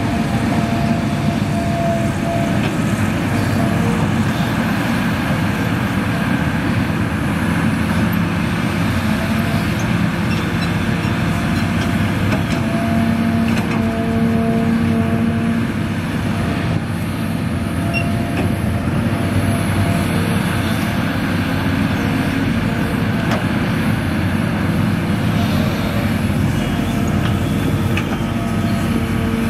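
Hitachi Zaxis 350H excavator's diesel engine running under load while it digs and swings soil into a dump truck: a steady low hum with tones that strengthen and fade now and then.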